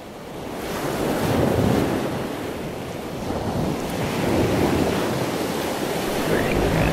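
Ocean waves washing on a shore: a steady rush of surf that swells and eases in slow surges.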